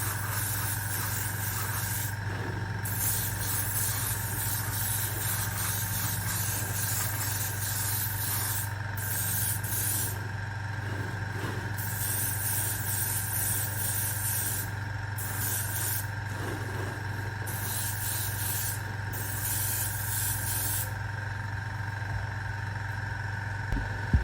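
Airbrush compressor running with a steady hum and whine, under the hiss of air spraying from the airbrush, which stops briefly about five times, as when the trigger is let go, and cuts out for good a few seconds before the end.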